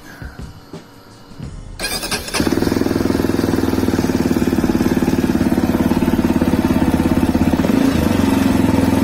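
CSC RX3's 250 cc single-cylinder engine started on the electric starter about two seconds in, after a few light clicks, catching at once and settling into a steady, evenly pulsing idle, with a brief wobble in pitch near the end.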